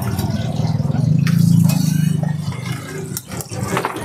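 Motorcycle engine running close by, a low pulsing rumble that grows louder about a second in and eases off after two and a half seconds.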